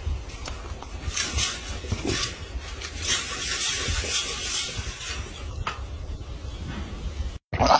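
Rustling and scraping noise over a low rumble, cut off abruptly near the end.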